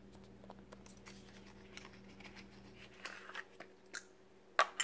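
Faint rustling and small clicks of cosmetic packaging handled by hand, with a few sharper clicks in the second half.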